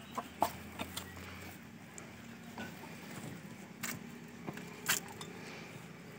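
Faint scrapes and a few sharp knocks from hands rummaging among loose bricks and straw inside a mud-brick chicken coop, reaching in for an egg; the loudest knock comes about five seconds in.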